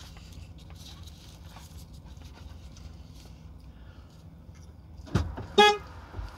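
Low steady hum in a truck cab, with faint sounds of eating. About five seconds in there is a dull thud, then a brief, loud high-pitched squeak-like sound.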